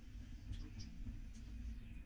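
Faint sizzling of sliced shallots and a curry leaf in oil heating in a small tempering pan, with a few soft crackles.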